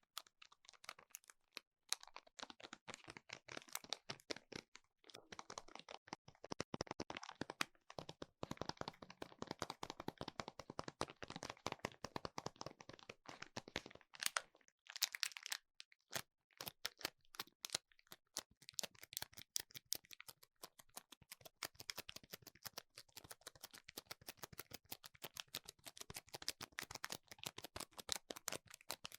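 Rapid, close-miked tapping and clicking on a hard object, briefly pausing a few times and getting quicker and more even in the second half.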